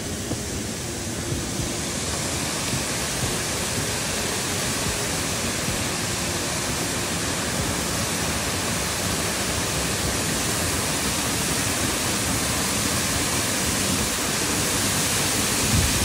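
Steady rushing roar of a tall waterfall, growing gradually louder as it is approached.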